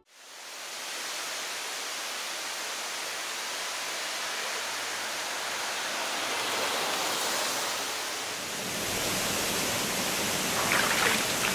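Steady rushing of water over rocks in a small mountain stream, a little brighter about two-thirds of the way through.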